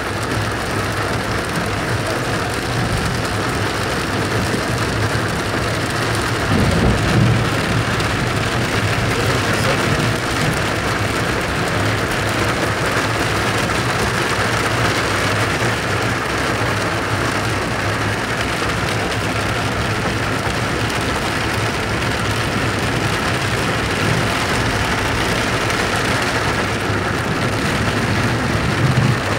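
Heavy rain and hail pelting a car's roof and windshield, heard from inside the cabin as a steady dense hiss. A louder low rumble swells about seven seconds in.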